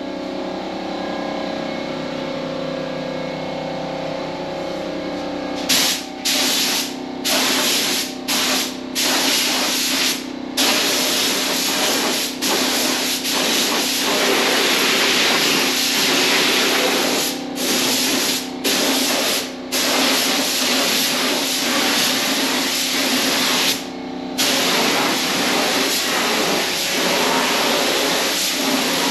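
Harbor Freight paint spray gun hissing as it sprays, fed at around 60–65 psi. It starts about six seconds in with several short trigger pulls, then long continuous passes broken once by a brief pause late on. A steady hum with a fixed tone runs underneath throughout.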